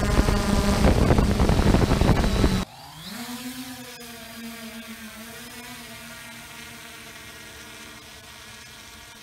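3DR quadcopter drone: at first a loud rush of propeller and wind noise on the drone's onboard camera. About two and a half seconds in, this gives way to the drone heard from the ground, a quieter, steady propeller hum whose pitch rises as it climbs and then holds.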